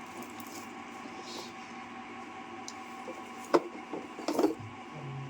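Handling noises: a sharp click about three and a half seconds in, then a short clatter of small knocks a moment later, over a steady electrical hum.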